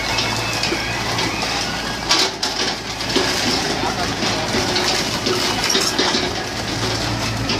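Excavator's diesel engine running with a steady low hum, and a few sharp knocks from the machine, the loudest about two seconds in.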